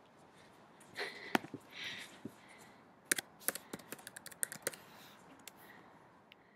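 Light clicks and taps of fingers handling the recording device close up, an irregular scatter of them from about a second in, thickest in the middle.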